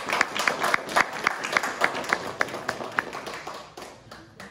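A small group of people applauding, with one set of hand claps standing out at a steady few claps a second. The clapping thins and stops a little before the end.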